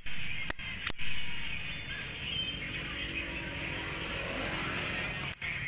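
Solid-brass Zippo lighter clicking: a couple of sharp metallic clicks in the first second, then steady background noise with one more click near the end.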